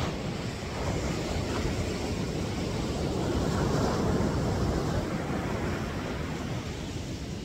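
Ocean surf: a wave breaking and washing up the beach, a steady rushing that swells to its loudest about halfway through and then slowly eases off.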